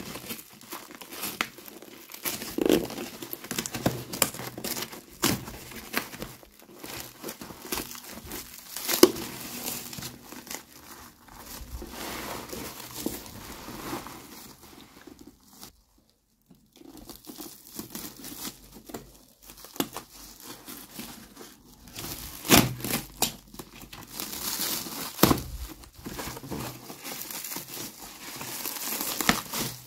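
Clear plastic wrap crinkling and corrugated cardboard tearing as a wrapped box is pulled open by hand, with irregular rustles and a few sharper rips. It breaks off briefly about halfway.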